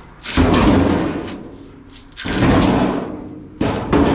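Three heavy thumps against the car's sheet-metal body, about a second and a half apart, each ringing briefly as it dies away.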